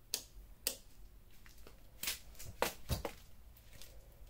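Soft, scattered footsteps and handling rustles, a few light clicks with a low thump about three seconds in.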